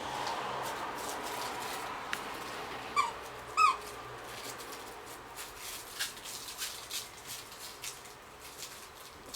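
Squeaky toy squeaked twice in quick succession about three seconds in, each short squeak dipping slightly in pitch, followed by a scatter of light clicks and taps.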